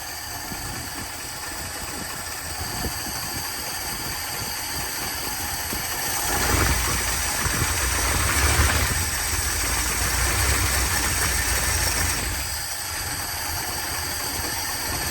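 1962 Dodge D200 pickup engine idling steadily as it warms up to operating temperature. It grows louder for about six seconds in the middle, then settles back.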